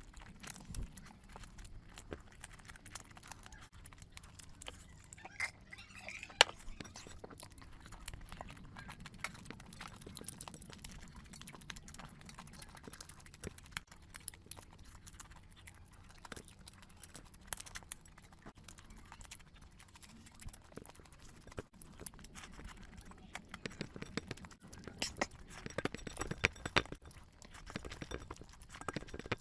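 Close-miked eating sounds: chewing with many short wet mouth clicks and smacks, and the odd clink of a plate.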